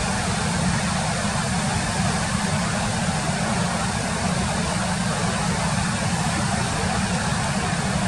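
Waterfall pouring over rock into churning whitewater: a steady, unbroken rush of noise with a deep rumble underneath.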